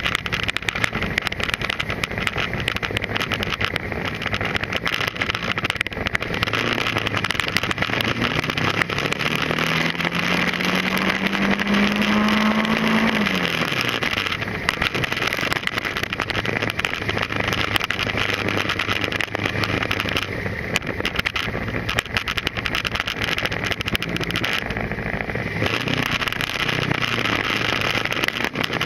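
Motorcycle engine running while riding, its pitch climbing steadily as it accelerates for a few seconds near the middle, then dropping off, and starting to climb again at the end. Heavy wind noise on the microphone runs over it.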